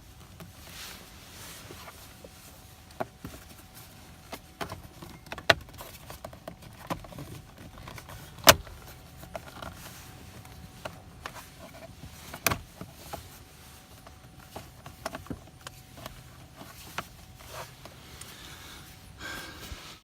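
Plastic steering-column trim pieces being handled and pressed into place, giving irregular sharp clicks and knocks, the loudest about eight and a half seconds in.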